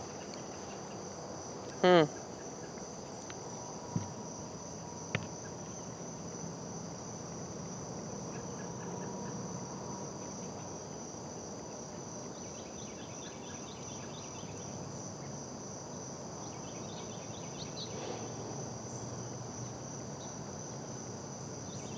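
Steady, high-pitched chorus of crickets, with a brief louder pitched call about two seconds in and a couple of faint knocks a few seconds later.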